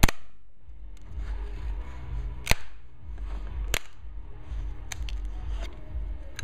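Sharp cracks, four in about five seconds, the first the loudest, as 3D-printed parts snap loose from the heated print bed. A low rumble runs underneath.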